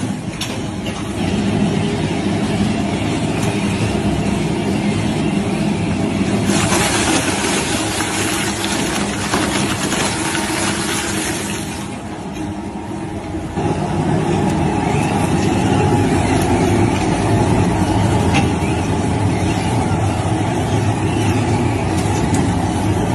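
Heavy-duty shredder machine running continuously with a steady mechanical hum. For about five seconds near the middle a harsher, hissing noise rises over it. It briefly eases, then comes back heavier and lower.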